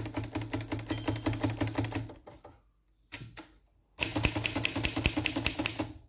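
Underwood Universal manual typewriter typing rapidly, its typebars striking the platen in a quick run of clacks, a short burst and another quick run after a break of about a second. The carriage keeps advancing past the set right margin because the margin release is pressed.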